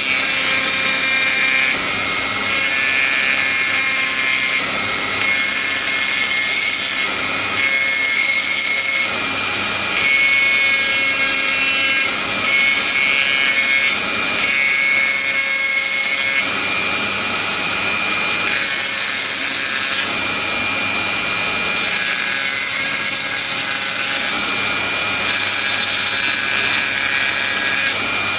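Handheld electric rotary engraving tool running with a high steady whine, its small bit grinding a frosted design into a glass tumbler. The gritty grinding hiss shifts slightly every few seconds.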